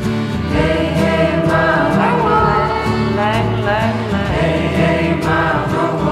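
Song playing: several singing voices over a steady low accompaniment.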